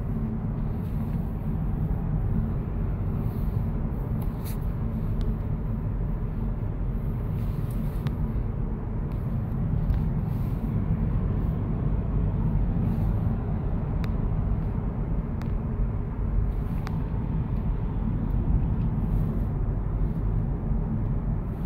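Road noise of a moving car heard from inside the cabin: a steady low rumble of tyres and engine, with a few faint clicks.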